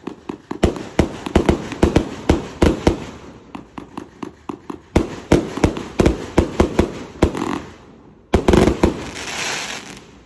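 Consumer fireworks cake firing a rapid barrage of sharp bangs, several a second, from the shot launches and the star bursts overhead. After a brief lull about eight seconds in comes a last loud flurry, and the barrage stops right at the end.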